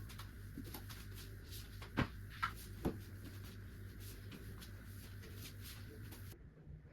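Three short knocks in quick succession, about two to three seconds in, over a steady low hum.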